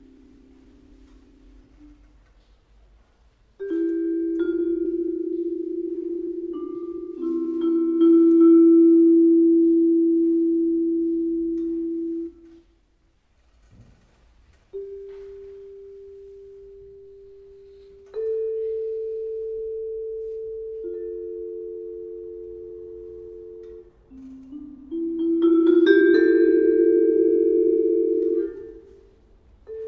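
Solo vibraphone playing slow chords of several notes that ring and slowly fade before being damped off. After a short pause near the middle, single held notes enter, building to a denser cluster of notes near the end.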